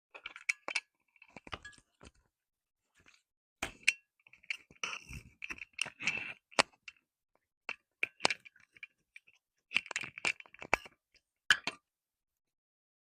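Close-miked handling of slime and its jars: irregular crackling clicks and small clinks, stopping shortly before the end.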